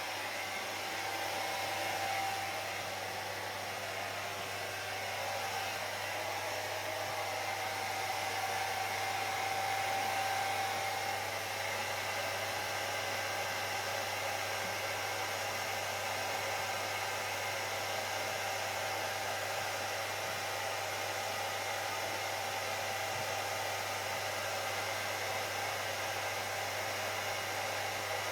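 Hair dryer running steadily on wet hair, a continuous rush of blown air over a constant low hum, swelling slightly in loudness about ten seconds in.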